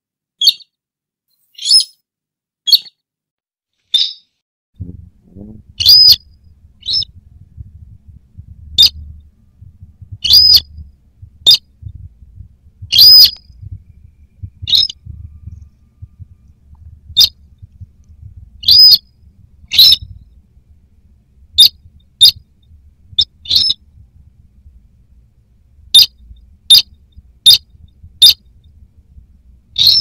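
Sintar rail calls from a bird-lure recording: short, sharp, high-pitched calls repeated irregularly, roughly one a second, some rising and falling within the call. From about five seconds in, a low rumble sits underneath.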